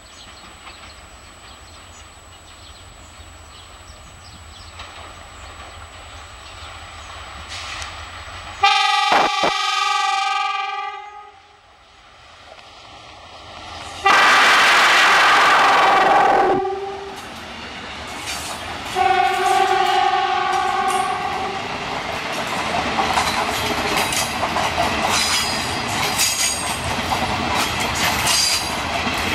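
EMD GT18B diesel locomotive sounding its horn in three blasts of about two seconds each, the middle one loudest, as it approaches with a rumble that slowly grows louder. The wheels of its passenger cars then clatter over the rail joints as the train runs past.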